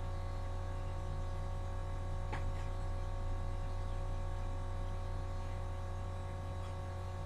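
A steady hum of several unchanging tones over faint room noise, with one light click about two seconds in.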